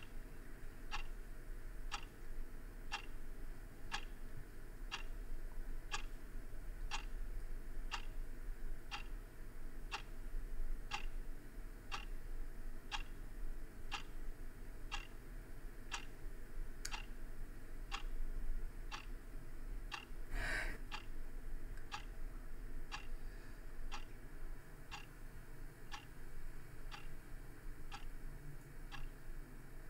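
A clock ticking steadily, about once a second, with one brief louder noise about twenty seconds in.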